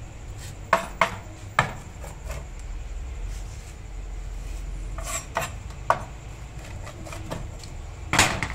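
Pizza-cutter wheel rolling through a baked paratha roll and knocking against a metal plate: a string of sharp metal clicks and clinks, the loudest clatter near the end.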